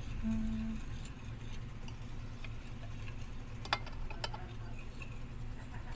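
Light clicks and taps of a kitchen utensil or can against a mixing bowl, with two sharper clicks a little past halfway, over a low steady hum.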